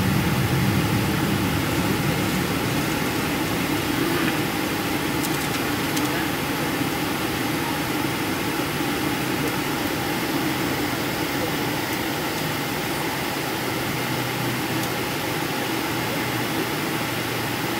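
Steady cabin noise inside a Boeing 777-300ER taxiing: the GE90-115B engines run at low power under a constant air-conditioning hiss. A low hum eases off slightly over the first few seconds, then the noise holds level.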